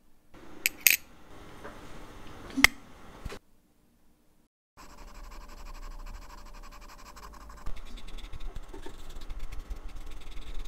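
A few sharp metallic clinks, then after a short pause, from about five seconds in, a cotton swab scrubbing white rust-removal paste over the rusted main plate of a Longines watch movement: a steady scratchy rubbing that gets louder and busier about eight seconds in.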